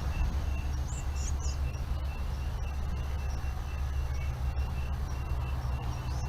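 Forest ambience picked up by a trail camera: a steady low rumble, a regular train of short high pips about three a second, and a few quick high bird chirps about a second in and again near the end.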